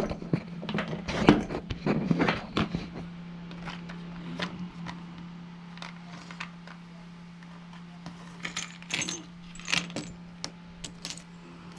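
Small metal tools and parts clinking and rattling in irregular clusters, loudest in the first few seconds and again near the end, over a steady low hum.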